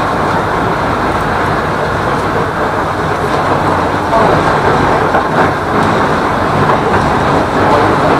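A tram running along its track, heard from aboard: a steady noise of wheels on rails and running gear, swelling slightly about halfway through.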